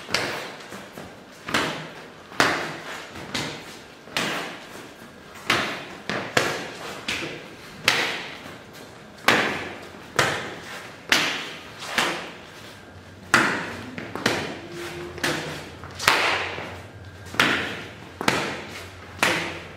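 Swinging punches met by outside forearm blocks, arm striking forearm guard, alternating left and right: a steady run of sharp slaps and thuds about one a second, each with a short echo.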